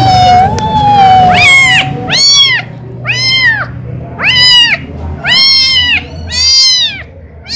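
A young kitten mewing repeatedly: about six loud, high-pitched mews of roughly half a second each, every one rising then falling in pitch, starting about a second and a half in.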